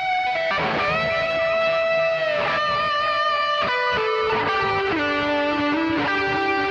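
Electric guitar with DiMarzio Titan humbuckers playing a lead line of long sustained single notes. One held note slides down in pitch about two seconds in, and in the second half a run of notes steps down in pitch.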